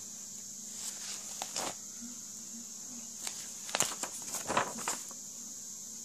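Paper pages of an old book rustling and crackling as they are handled and turned: a few brief rustles about a second in, then a denser cluster around four to five seconds in, over a steady hiss.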